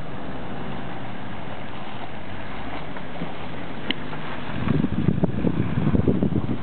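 An SUV drives past on a dusty dirt track and away, a steady noise of engine and tyres. About two-thirds through, irregular low buffeting of wind on the microphone sets in and becomes the loudest sound.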